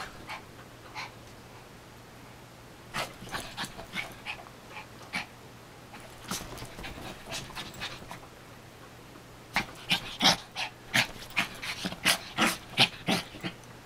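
Small terrier-type dog panting in short, quick huffs during rough play. The huffs are scattered at first, then come fast and loud about three a second for the last few seconds.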